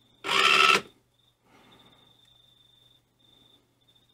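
A toy RC car's small electric motor and plastic gears whirring in one short burst of about half a second, a quarter of a second in. The motor is being pulsed by a new motor driver board to check that the board can drive it.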